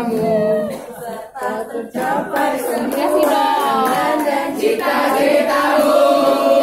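A group of young people singing a birthday song together, with some hand clapping.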